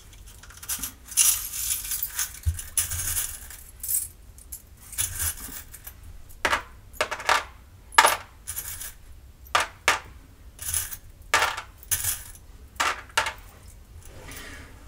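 Small metal charms clinking against each other and a small glass dish as they are picked out and dropped, a run of irregular light clinks.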